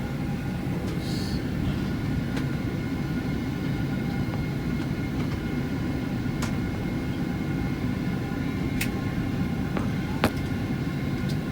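Cabin noise inside a Boeing 767-400ER with its engines running: a steady low rumble with faint steady whining tones, a few light clicks and one sharp knock near the end.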